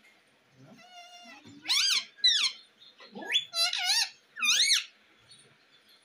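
Indian ringneck parakeet giving a run of about six short, high-pitched calls between about one and five seconds in, each swooping up and down in pitch.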